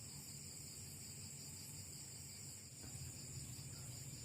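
Crickets and other night insects chirping in a steady high chorus, one of them in a fast, even pulse.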